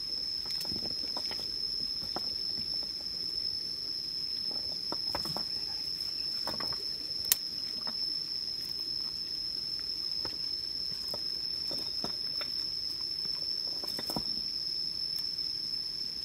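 Insect singing one steady high-pitched tone without a break. Scattered faint ticks sound over it, with one sharp click about seven seconds in.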